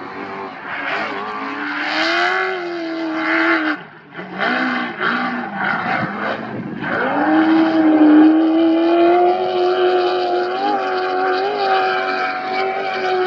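Off-road race vehicle's engine at hard throttle: its pitch climbs, drops away briefly about four seconds in, then climbs again and holds high and nearly steady with a couple of small blips.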